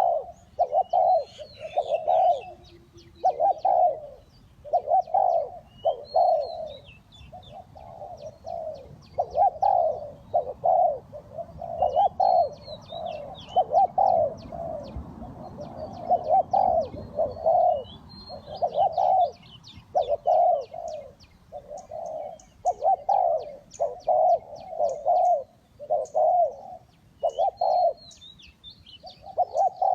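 Spotted doves cooing over and over, one low coo after another about every second. Small birds chirp and give rapid high ticking calls above them.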